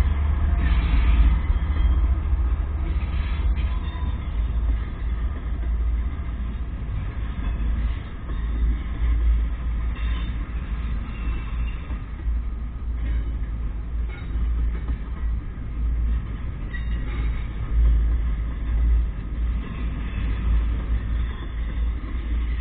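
A slow-moving CSX double-stack intermodal train rolling past: a diesel locomotive goes by at the start, loudest in the first couple of seconds, then a steady rumble of loaded container well cars on the rails with occasional faint clicks.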